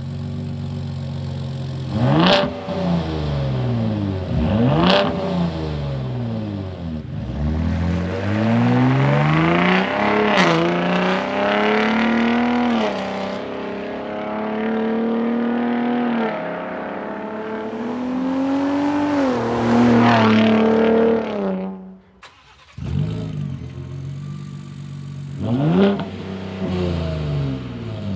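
2021–2024 Ford F-150 Raptor's twin-turbo 3.5-litre V6 on its stock exhaust in Normal mode: idling, two quick revs, then a hard acceleration away with the pitch climbing and dropping back at each upshift. After a brief break it idles again in Baja mode and revs once near the end.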